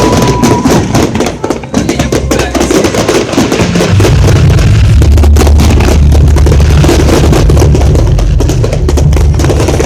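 Fireworks crackling and banging over loud concert music; heavy bass from the music swells in about four seconds in.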